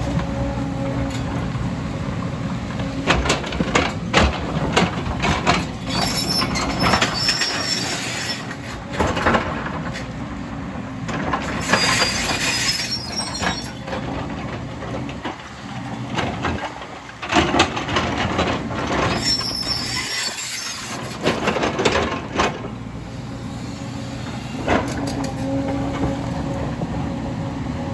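JCB tracked excavator's diesel engine running under load while the steel bucket digs and scrapes into rocky soil, with stones and dirt clattering down. High-pitched squeals break through three times, about 6, 12 and 19 seconds in.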